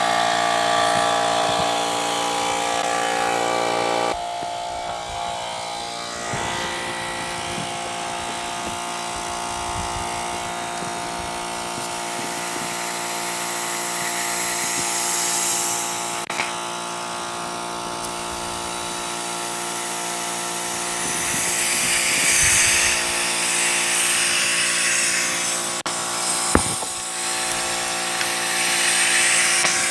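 Air compressor motor running steadily, with hissing bursts of compressed air twice in the latter part.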